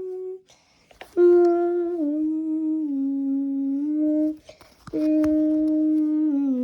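A person humming a slow tune in long held notes that step down in pitch, in two phrases with short breaks between them.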